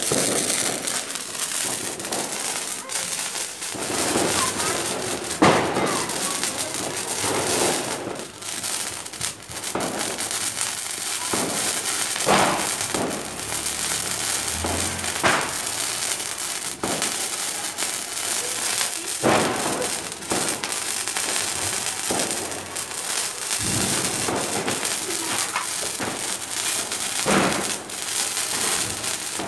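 Ground fountain fireworks spraying sparks: a steady hiss with scattered crackles and sharp pops.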